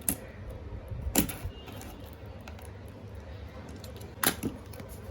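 Small hard objects clacking and knocking on a tabletop as unboxed items are moved aside: a sharp click at the start, a louder knock about a second in, and two quick clacks close together near the end.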